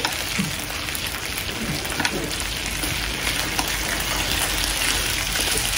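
Beef frying in a hot pan, with a steady sizzling hiss.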